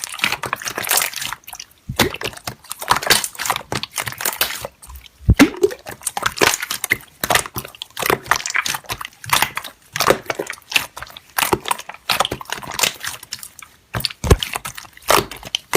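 Slime being squished and stretched by hand, making dense, irregular wet clicks, pops and crackles.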